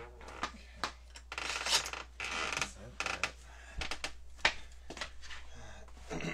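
Handling noises around a screen door: several sharp knocks and clicks, with two short rustling or hissing bursts a little over a second in.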